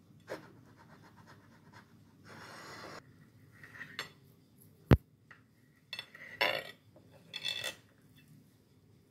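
Crockery and cutlery on a hard counter: a short rustle, one sharp clink about five seconds in, then a few clinks and scrapes of a knife against a china plate as the set dessert is cut.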